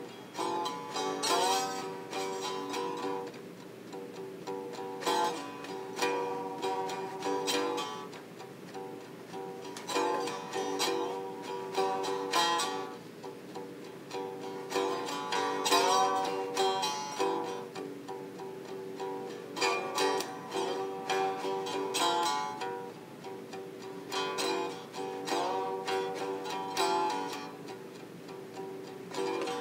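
Homemade plank-necked guitar played with a slide: a slow run of plucked notes that ring on, their pitch gliding up and down between notes.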